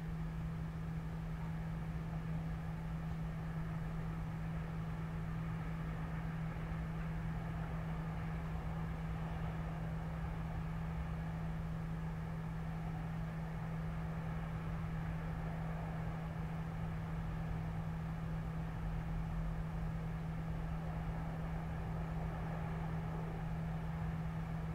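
Steady low hum with a constant droning tone, under a faint wash of distant city traffic heard through a window.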